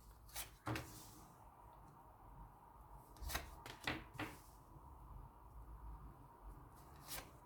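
A few scattered light taps and rustles of tarot cards being handled and laid down on a table, over faint room tone.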